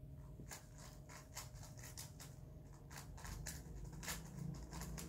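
3x3 puzzle cube being scrambled by hand: its plastic layers turning in faint, irregular clicks, several a second.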